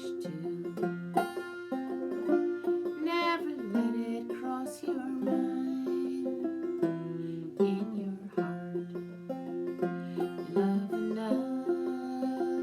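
Clawhammer banjo in open fDGCD tuning, its fifth string tuned down to F, playing a fiddle-style tune in the key of F: a steady rhythmic stream of picked melody notes and brushed strums.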